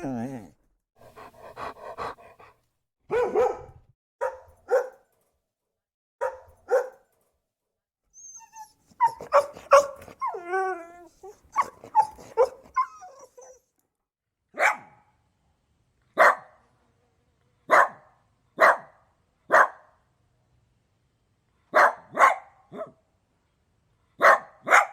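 Dog barking: short barks, sometimes in quick pairs, with a busier run of barks mixed with wavering whines around the middle, then single barks about one to two seconds apart.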